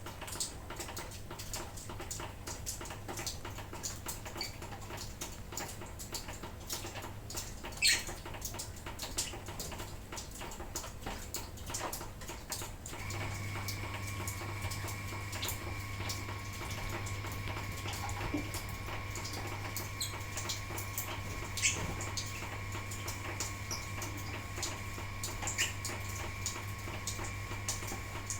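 Lovebirds giving short squeaks and chirps over a dense patter of light drizzle, with a faint steady hum beneath; a thin steady tone comes in about halfway.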